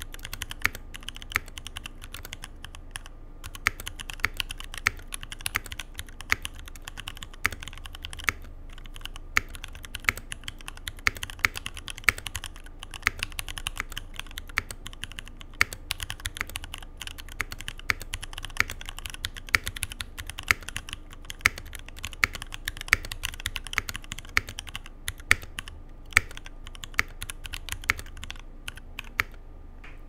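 Continuous, irregular typing on an NK65 EE mechanical keyboard with an aluminium plate, C3 Equalz Dragonfruit linear switches and GMK keycaps. The keystrokes come quick and uneven, with a couple of short pauses, and stop shortly before the end.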